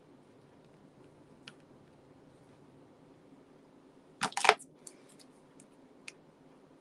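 Craft supplies being handled on a desk: a brief clatter of hard clicks a little past four seconds in, with a few faint single taps before and after it.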